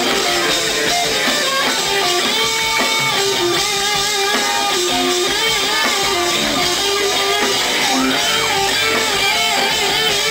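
Live band playing, led by electric guitar over bass guitar.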